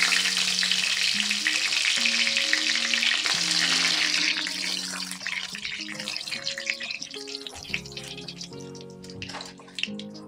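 Whole cumin seeds, bay leaves and dried red chillies sizzling in hot oil in a kadai as the tempering for the curry; the sizzle is loud at first and dies down from about halfway. A spatula scrapes and clicks against the pan in the second half, over soft background music.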